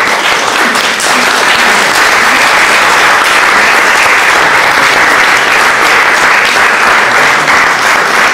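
Audience applause, many hands clapping together; it starts suddenly and holds steady.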